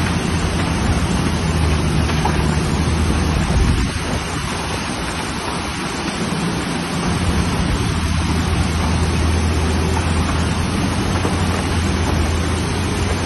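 Muddy floodwater rushing in a torrent over a washed-out embankment, a loud, steady roar of water. Under it runs the low hum of a working excavator's diesel engine, easing off for a few seconds midway.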